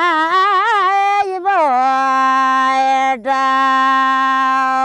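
Unaccompanied woman's voice singing a Far-Western Nepali Deuda thadi bhaka. A wavering, ornamented line moves into one long held note at about a second and a half, with a brief catch about three seconds in.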